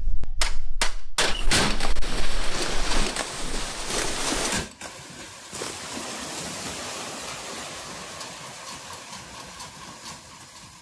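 A truckload of mullet sliding and tumbling out of a tipped truck bed into a wet holding pen: a steady wet rushing hiss full of small slaps and flaps of fish. It is louder for the first few seconds and drops sharply about halfway through.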